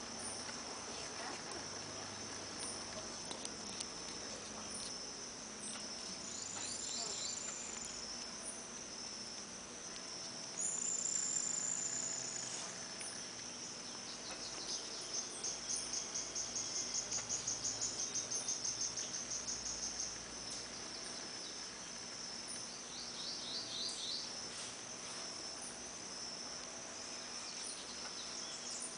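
Insects calling: a steady high-pitched chorus throughout, with a louder pulsed trill of about four to five pulses a second for some five seconds past the middle, and a couple of brief high steady tones earlier on.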